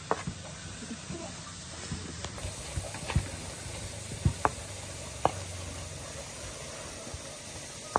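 Stone pestle grinding red chillies in a terracotta mortar: a steady low grinding with several sharp knocks of stone on clay, most of them between about three and five and a half seconds in, and one more at the end.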